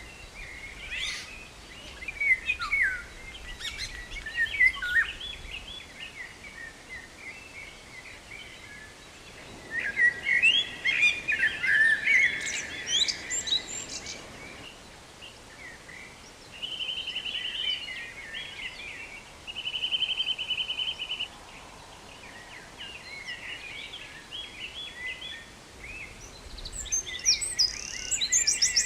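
Songbirds chirping and singing, with short buzzy trills about 17 and 20 seconds in and a busier stretch of calls around 10 to 14 seconds.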